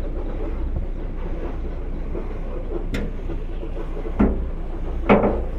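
Steady rumble of a slow-moving vehicle, with a few sharp knocks and clunks; the loudest comes about five seconds in.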